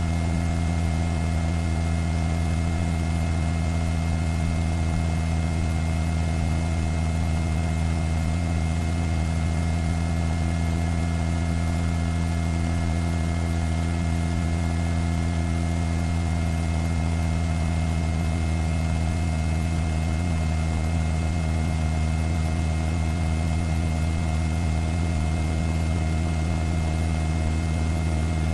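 Steady drone of a news helicopter's engine and rotor heard from inside the cabin: an even low hum with several steady tones above it.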